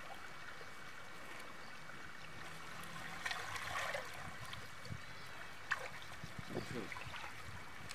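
Water trickling and splashing softly as a wet fishing net is lifted and handled in shallow river water, with a few small splashes from about three seconds in.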